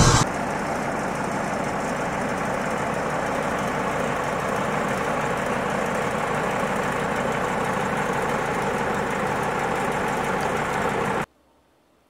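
Sawmill engine idling steadily, cutting off abruptly about eleven seconds in.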